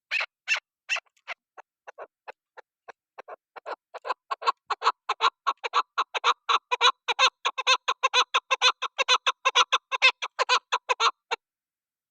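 Chukar partridge (chakor) calling: a few spaced call notes, then a fast, even run of about five notes a second starting about four seconds in, which stops abruptly near the end.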